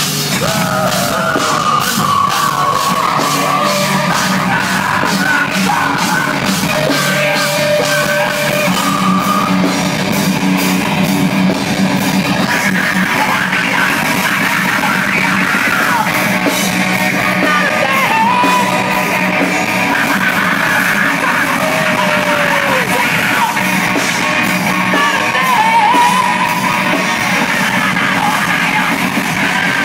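Metal band playing live: distorted electric guitar and drums with yelled vocals.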